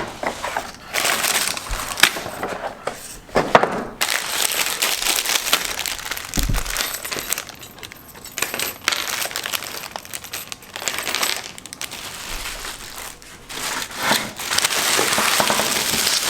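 Objects being handled: rustling and crinkling with small clicks and clinks, coming in uneven bursts.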